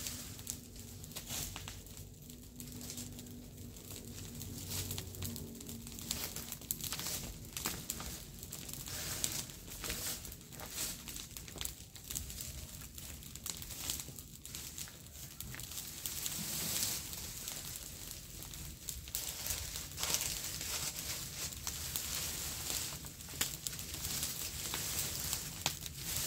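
Dry leaves and twigs rustling and crunching as they are raked, gathered and dragged into a pile, with many short, irregular crackles throughout.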